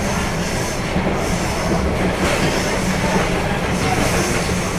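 Steady wheel-on-rail running noise heard from inside a CNR electric multiple-unit train on the move, with no traction motor sound.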